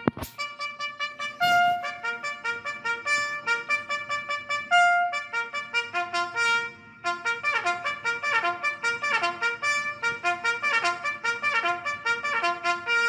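Trumpet playing a fast military-style bugle call, many short tongued notes in quick repetition, with a brief break about halfway.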